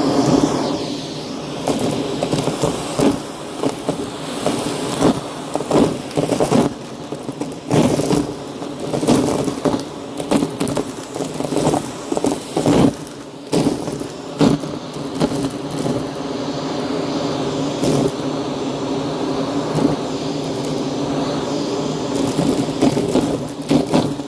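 Vacuum cleaner running over a rug, its motor drone steady, with frequent crackles and clicks through the first two-thirds and a smoother drone near the end.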